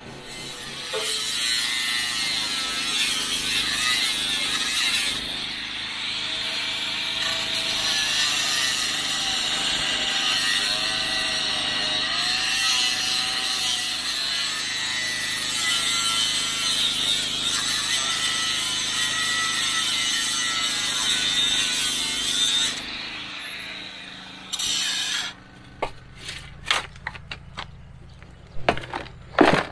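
Power tool, most likely an angle grinder, cutting through rusted steel pipe bars for a long continuous stretch, its pitch wavering as it bites. It stops near the end, followed by a few separate scrapes and knocks of a shovel in dirt.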